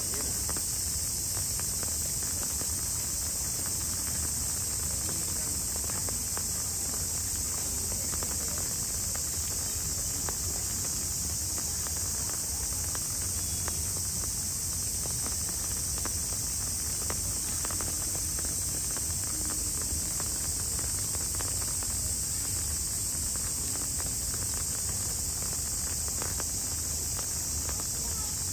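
Steady high-pitched drone of an insect chorus, unbroken throughout, with faint scattered ticks.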